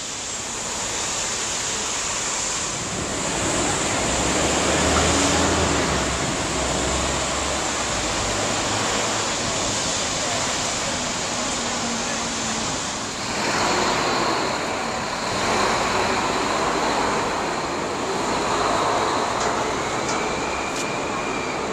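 City street traffic noise: a steady wash of passing road vehicles, with a stronger low engine rumble from about four to nine seconds in.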